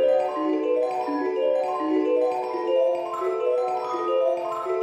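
Background music: a quick melody of short struck notes, about five a second, stepping up and down, with a mallet-percussion sound like a marimba or xylophone.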